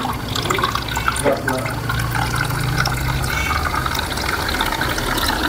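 Sugarcane juice pouring steadily from a juice machine's brass tap into a plastic cup, over a steady low hum.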